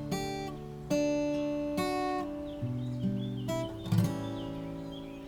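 Background music: acoustic guitar chords strummed about once a second, each left ringing, without singing.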